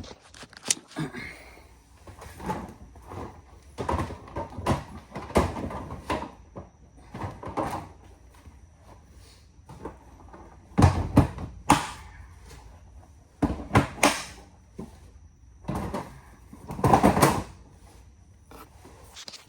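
Tools and gear being moved around in a toolbox: an irregular series of knocks and clunks, loudest around the middle and again near the end.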